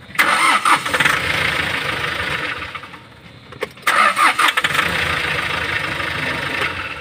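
Hyundai Porter 2 CRDi diesel engine cranked on its starter twice, each time for about three seconds, with a pause between.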